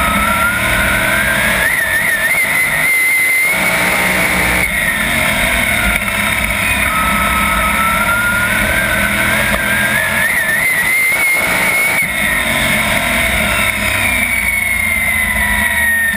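410 sprint car's V8 engine at race speed, heard from on board. Its pitch climbs on acceleration and holds, drops near the five-second mark, climbs again for several seconds and falls away near the end, all over heavy wind and track noise.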